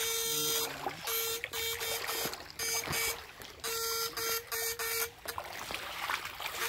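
Backpack electrofishing unit buzzing in short on-off pulses, about three a second, with one longer buzz about halfway through, as the current to the probe poles is switched; a shallow creek trickles underneath.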